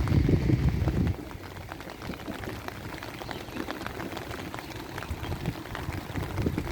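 Rain falling, with a steady patter of many small drop ticks. A low rumble fills the first second and cuts off suddenly.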